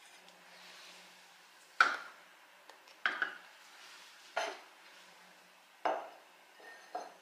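A glass coffee server and a porcelain mug being handled and set down: about five sharp clinks and knocks, one every second or so, the first the loudest.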